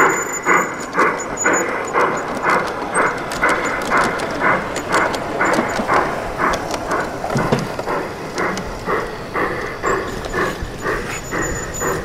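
Garden-scale model train running past on brass track, a Rio Grande steam locomotive pulling freight cars and a caboose, with a steady rhythmic beat of about three a second.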